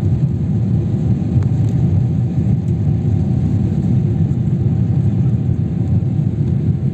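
Airliner cabin noise after takeoff: a loud, steady low rumble of the aircraft's engines and rushing air, with a faint steady hum above it.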